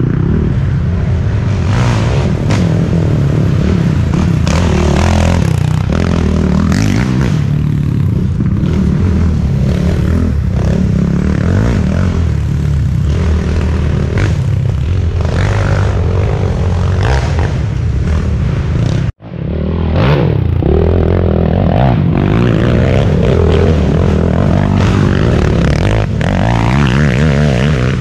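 Racing quad (ATV) engine running and revving up and down, with scraping and clattering over rough ground. The sound drops out for an instant about two-thirds of the way through, then carries on.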